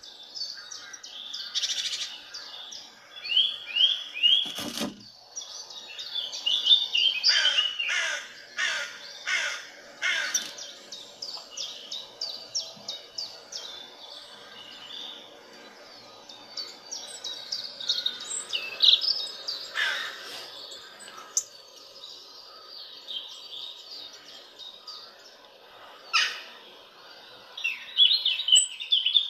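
Small birds chirping and twittering in many short, quick calls, some falling in pitch. A single knock sounds about five seconds in.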